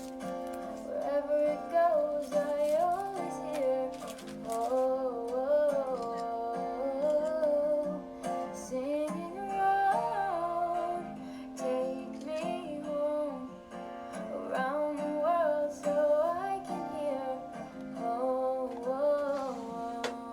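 Background music: acoustic guitar accompaniment under a wordless melody line.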